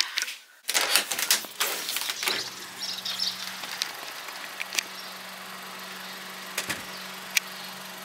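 Rustling and knocks of people settling into a car, then the car's engine idling steadily, with a few light clicks.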